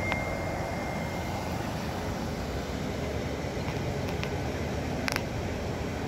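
Steady rushing of a river's rapids and small waterfall, with a couple of brief clicks, the clearest about five seconds in.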